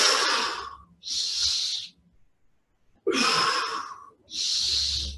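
A man breathing deeply and audibly close to the microphone: two full breaths in and out, each stroke about a second long, paced with a stretching exercise.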